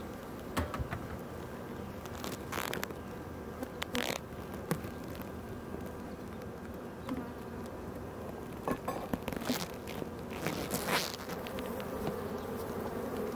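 Honey bees buzzing steadily around an opened, smoked hive, disturbed and in the air. A few brief hisses and clicks break in now and then.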